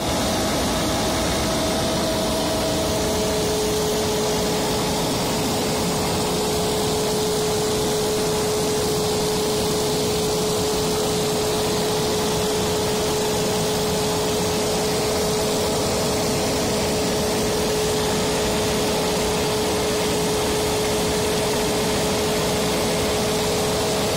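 Hardi Neptun OP 35 air-blast sprayer's fan running at a steady speed: an even rushing of air with a constant hum.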